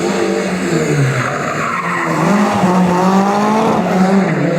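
Historic rally car engine revving hard while the car slides sideways, its tyres skidding. The engine note dips about a second and a half in, then climbs again.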